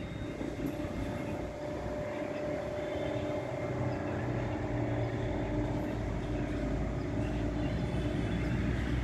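Steady outdoor background noise: a low rumble with a faint steady hum running through it.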